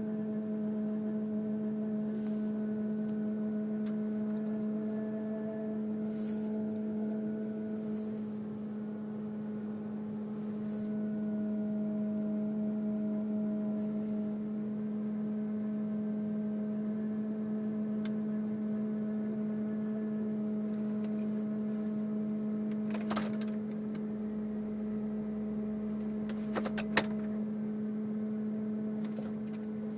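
Steady hum from the engine compartment of a 2002 Mercury Grand Marquis: one constant mid-pitched tone with fainter overtones above it, an intermittent fault noise of unknown cause that the owner finds unrelated to bumps, speed or gear. A few sharp clicks sound in the last third.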